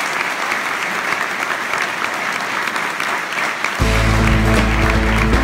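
An audience applauding. About two-thirds of the way in, background music with a heavy bass starts suddenly.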